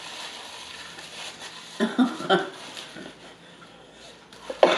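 A woman's short wordless vocal sounds of delight, a cluster about two seconds in and again just before the end, over faint mouth and napkin noises.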